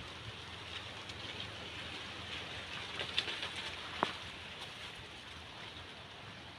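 Steady outdoor background hiss, with a few faint clicks and one sharp tick about four seconds in.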